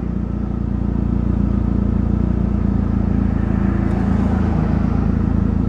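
Turbocharged car's engine and leaking exhaust running steadily under way, heard from inside the cabin; the exhaust is broken at the downpipe flange.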